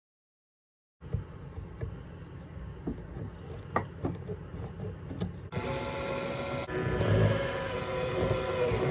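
A few scissor snips and rustles as carpet is trimmed. Then, about five seconds in, a Makita cordless drill-driver whirs steadily for about three seconds, driving a screw, and its pitch sags slightly just before it stops. The first second is dead silence.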